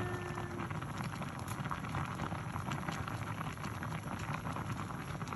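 Okra and fish stew boiling in a cooking pot: a steady bubbling with many small pops.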